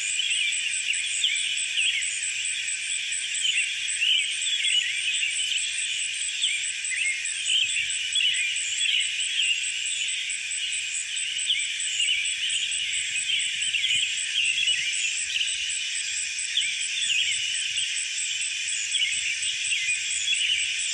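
Dense chorus of many birds chirping and twittering in short, quick calls, over a steady, evenly pulsed high trill.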